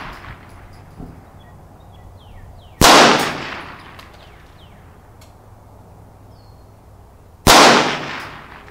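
Two shots from a Marlin Papoose .22 LR semi-automatic rifle with a 16-inch barrel, firing CCI Stinger 32-grain hypervelocity rounds, a little under five seconds apart. Each is a sharp crack that trails off over about a second.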